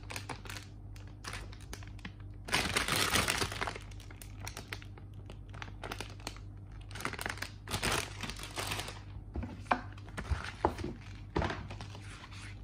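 Clear plastic bags holding plastic model-kit runners crinkling as they are handled, in uneven bursts, the loudest about a quarter of the way in. Near the end come a few sharp knocks of plastic being set down or tapped.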